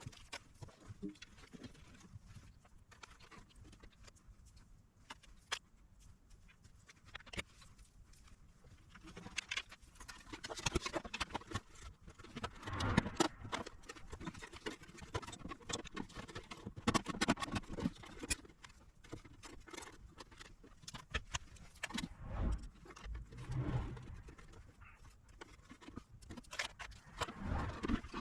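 Hands working on a small electronics unit at a bench: scattered clicks, taps and knocks with bouts of scraping and rustling as parts and tools are handled, busiest in the middle of the stretch.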